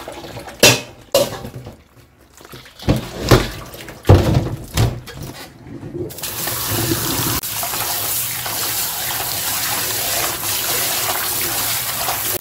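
Splashes and knocks as blanched seaweed and hot water are drained from a steel pot into a bamboo strainer in a stainless steel sink. From about six seconds in, the cold kitchen tap runs steadily onto the seaweed in a bowl in the sink as it is rinsed.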